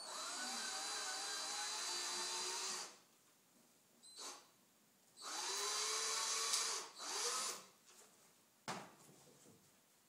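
Electric drill-driver backing out an electrical outlet's mounting screws: a run of about three seconds whose motor pitch rises as it spins up, then a second run of about two seconds ending in a short extra burst, and a single click near the end.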